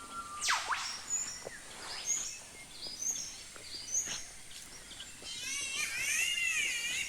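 Forest birds calling: one sharp, whip-like sweeping call about half a second in, scattered short high chirps, then a run of wavering, warbling calls near the end.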